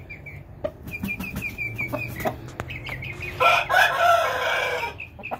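Runs of short, high chirping notes, about five a second, then a rooster crows once, loudly, for about a second and a half starting about three and a half seconds in.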